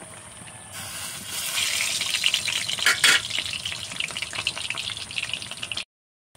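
Khaja dough pieces deep-frying in hot oil in an aluminium kadai: a dense crackling sizzle that grows louder about a second in, with two sharp clicks near the middle. It cuts off abruptly near the end.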